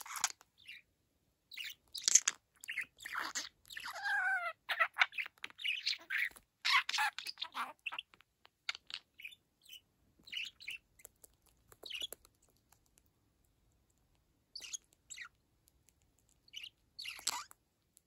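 Budgerigar chattering and warbling in quick bursts with pitch glides, its mimicked phrases "serotēpu", "Kii-chan", "chawanmushi" and "let's go" run into the chatter. After about eight seconds the chatter thins to scattered short chirps and clicks, with one last burst near the end.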